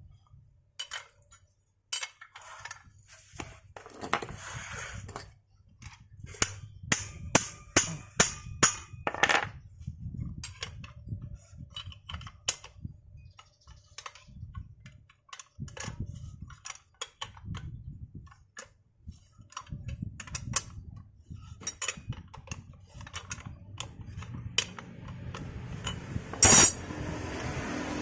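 Metal tools clicking and clinking against the rear driven-pulley assembly of a Honda Vario 150's CVT as a wrench works its nut loose, with a run of quick clicks about a quarter of the way in and one loud bang near the end.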